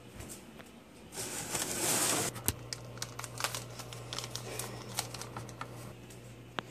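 Crinkly wrapper being handled and crumpled in the hands. There is a louder rush of rustling for about a second near the start, then scattered small crackles.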